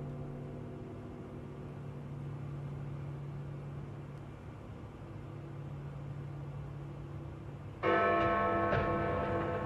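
Big Ben's bells in the Elizabeth Tower ringing at eleven o'clock: one stroke's ring dies away slowly, then about eight seconds in a new stroke rings out loudly and hangs on.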